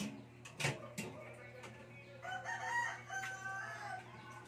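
A rooster crows about two seconds in: a wavering crow that ends on a held note. A couple of sharp knocks come in the first second.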